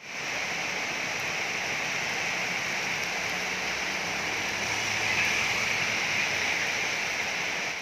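Heavy rain falling steadily, an even hiss of rain on the street, roofs and trees. About halfway through it swells a little as a car drives by on the wet road.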